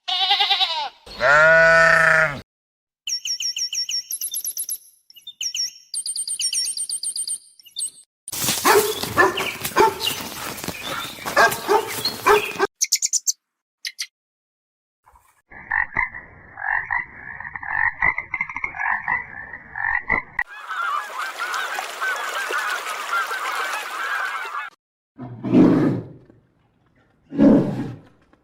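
A string of short, different animal calls with gaps between them: a pitched call, then high chirps, a long crackly rattling stretch, a pulsing croak-like call, a hissy stretch, and two short low calls near the end.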